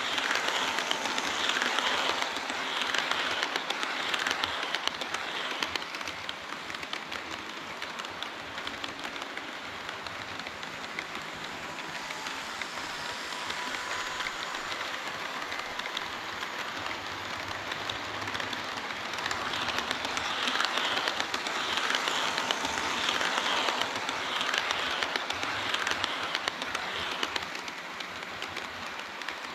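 HO-scale model train running on the layout track, its metal wheels clattering in a dense run of fine ticks. It is louder near the start and again about two-thirds through, as the train passes close by.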